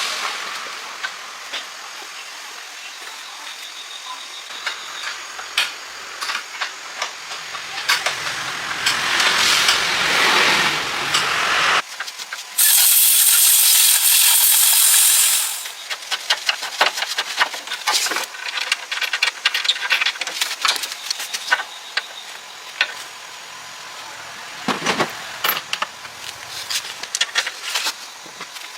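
Workshop work noise: scattered clicks, taps and clanks of tools on metal, with a loud steady hiss that starts suddenly about halfway through, lasts about three seconds and cuts off.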